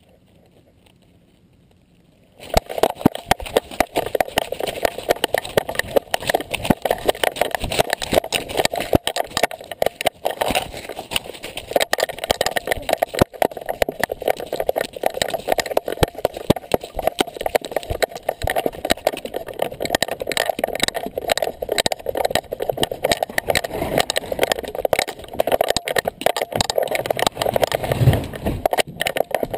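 Dense, irregular rattling and knocking of an action camera strapped to a running dog, the mount jostling with every stride; it starts about two seconds in and goes on without a break, with a low thud near the end.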